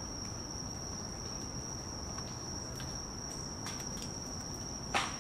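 A steady high-pitched insect drone runs throughout. About five seconds in comes one sharp knock: an acorn dropping out of the oak overhead and hitting the ground.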